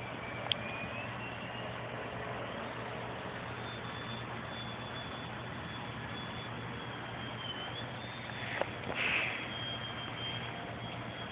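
Electric motor and 9x4.7 propeller of a small foam RC aerobatic plane whining at a high pitch that rises and falls as the throttle is worked. A sharp click comes about half a second in, and a brief rush of noise near the end.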